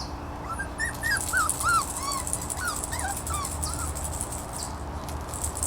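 Five-week-old shiba inu puppy whimpering: a string of short, high, squeaky whines for the first few seconds, then trailing off.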